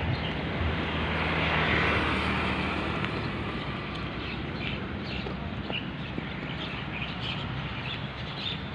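A motor vehicle passing, its noise swelling about a second in and fading over the following seconds, over steady outdoor background noise; faint short chirps come through later on.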